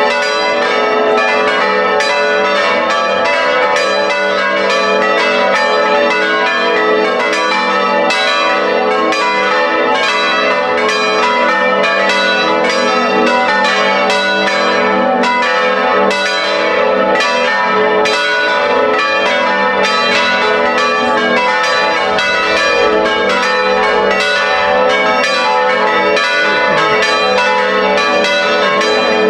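Electrically swung church bells of a five-bell ring in A (La3) swinging together. Their clappers strike in a dense, unbroken peal of overlapping ringing tones.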